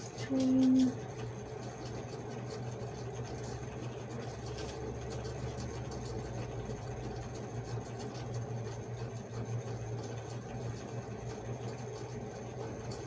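Steady low electrical or fan hum with faint clicks and rustles of hands handling small items. A short, loud single-pitched tone lasts about half a second just after the start.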